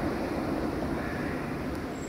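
Steady low rumble of street traffic with a tram coming along the track in the distance, easing off slightly near the end.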